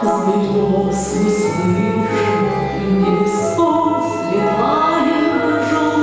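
A woman singing a Russian song into a microphone over a recorded orchestral accompaniment, played through loudspeakers.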